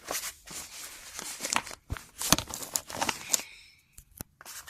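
Toy packaging being torn open and handled: rustling, crinkling and tearing with sharp clicks and knocks, going quiet for about a second near the end.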